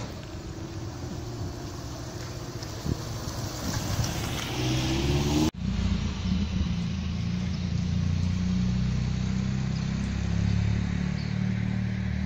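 Street traffic: a car passes, its engine rising in pitch as it speeds up. After a sudden cut, a vehicle engine runs steadily with a low hum.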